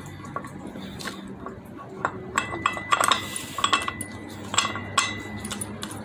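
Steel wheel-bearing puller parts clinking and tapping as they are fitted over the wheel hub and a nut is spun down the threaded rod, with a brief metallic ring about two seconds in and again near the end, over a low steady hum.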